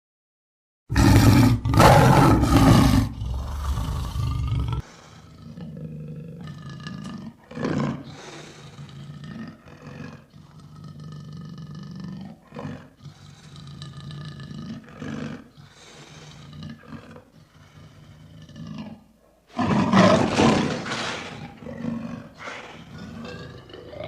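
Lion roaring: after a moment of silence, a loud roar lasting about four seconds, then a long series of shorter, quieter calls about a second apart, and a second loud roar about twenty seconds in.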